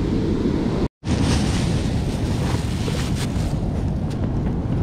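Wind buffeting the microphone over the steady wash of breaking surf, broken off for an instant about a second in.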